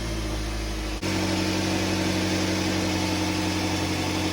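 2005 Nissan Altima engine idling steadily, with no exhaust leak puffing or ticking: the rusted-out flange bolts between the catalytic converter and resonator, just replaced with new bolts, seem to be sealing. The sound steps up slightly about a second in.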